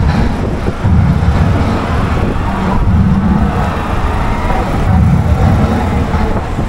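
Low, uneven engine rumble of the vehicle carrying a parade float as it passes close by.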